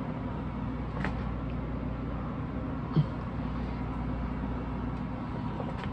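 Steady low background hum with handling noise from a vinyl record being moved: a soft thud about three seconds in and a couple of faint clicks.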